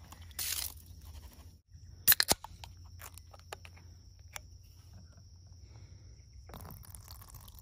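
Handling an aluminium beer can: three sharp clicks about two seconds in, then a light crack as the pull tab is opened, over a faint steady high-pitched tone.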